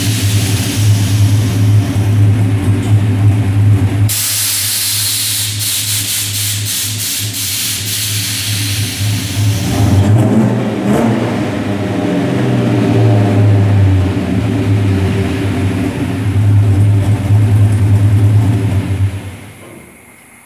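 Swapped-in 6.0-litre LS V8 in a lowered dually pickup running at idle and blipped a few times, with a hiss for several seconds in the first half, then shut off near the end.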